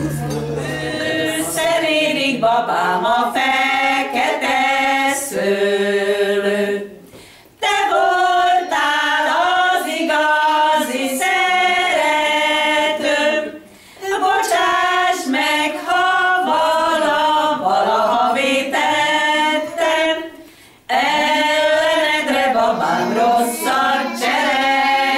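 A small group of women singing a song together without accompaniment, in phrases of six to seven seconds with short pauses between them.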